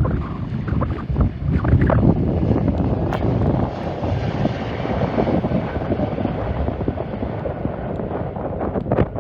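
Wind buffeting the microphone, with the rushing engine noise of a jet airliner passing. The jet noise swells about three seconds in and fades near the end.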